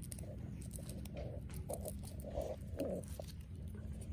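Soft, muffled rustling and crumbling as fingers work loose potting soil off succulent roots, in short strokes about twice a second, over a steady low hum.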